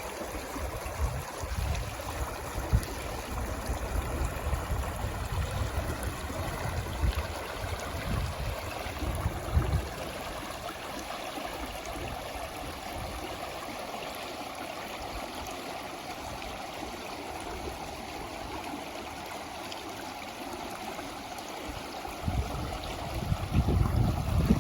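Flowing water in a stream, a steady even rush. Low rumbling buffets come and go through the first ten seconds or so and return near the end.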